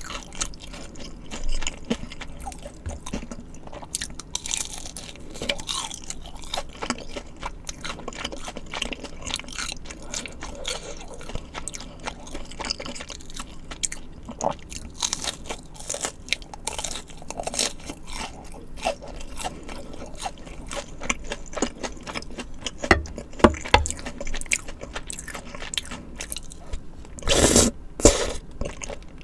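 Close-miked eating: crunchy bites into fried food and chewing, a dense run of small crackles with a loud crunchy bite near the end.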